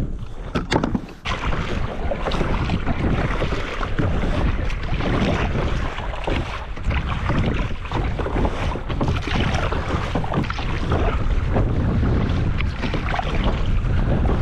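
Wind buffeting the microphone with water rushing and splashing against the hull of a moving kayak, a steady loud noise after a few knocks in the first second.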